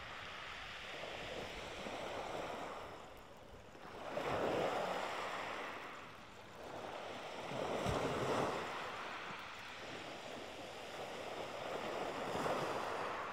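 Small waves breaking on a shingle beach and washing over the pebbles. The surf swells three times, a few seconds apart.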